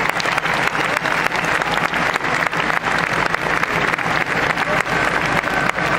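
Large crowd applauding steadily, a dense sound of many hands clapping, with scattered voices mixed in.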